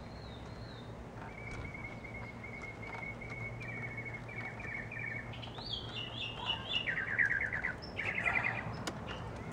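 Birds singing: a run of high repeated chirping notes starting about a second in, turning into quick trills near the end.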